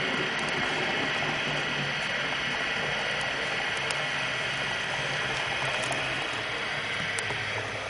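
H0 scale model trains running on the layout track: a steady whir of the models' small motors and gearing, with wheels rolling on the rails and a few faint ticks.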